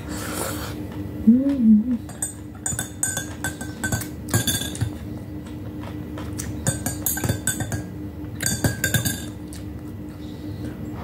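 Metal spoon clinking against a glass coffee mug in quick runs of ringing clinks, as the coffee is stirred. A short hummed "mm" comes about a second and a half in.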